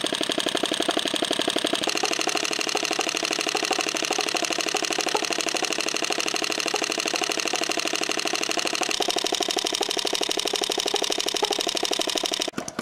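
Model flame-eater (vacuum) engine running fast, its valve clacking in a rapid even beat as the flame is drawn into the cylinder on each stroke, the valve working hard. The sound turns suddenly quieter near the end.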